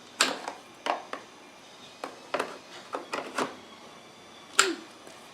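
Sharp clicks and knocks, about ten at irregular spacing, from parts of a Hoover bagless upright vacuum being handled and taken apart.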